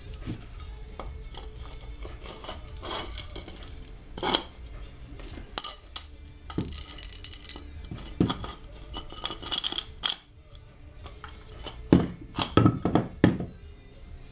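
Metal parts and tools clinking and knocking, an irregular run of clanks and rattles with a cluster of heavier knocks near the end, as the home-made threaded-rod spring compressor and shock absorber parts are handled.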